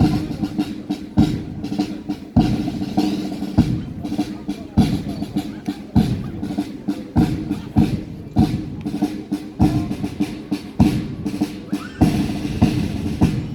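Military band playing a march, a bass drum beating steadily about every second and a quarter over held low notes.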